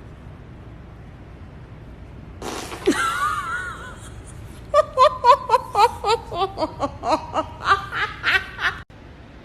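A sudden burst of sound with a wavering high squeal lasting about a second, then a high-pitched voice laughing in quick repeated bursts for about four seconds, cut off suddenly near the end.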